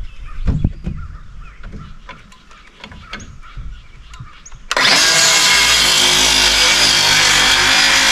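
A few light knocks and clicks as the saw is set on the board, then about halfway through a cordless circular saw starts abruptly and runs loud and steady, cutting a 45-degree angle across a wooden deck rail top.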